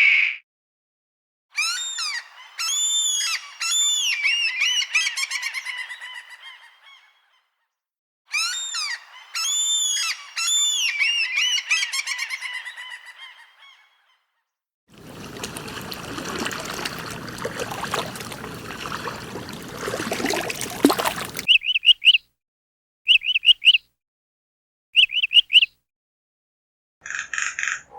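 A bird honking in two long series of repeated calls, each series fading away over several seconds. These are followed by about six seconds of steady noise, then three short high chirps.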